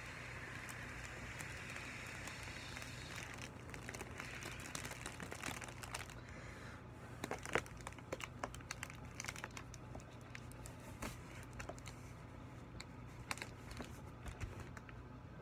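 Mylar foil balloon crinkling and crackling as it is handled and squeezed, with a soft steady hiss in the first few seconds and clusters of sharp crackles from about four seconds in.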